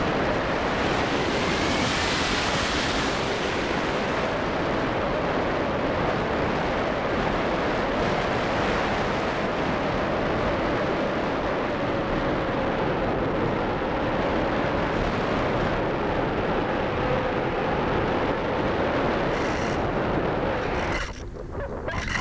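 Airflow rushing over the microphone of a keychain camera on a radio-controlled ASW 15 model sailplane in flight, a steady noise like surf, with a faint wavering hum underneath. The rush drops away briefly about a second before the end.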